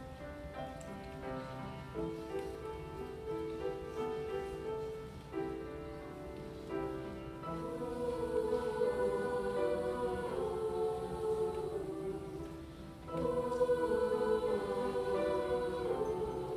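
Mixed choir singing a slow piece with piano accompaniment. The sound swells louder about halfway through, dips briefly, then rises to its fullest near the end.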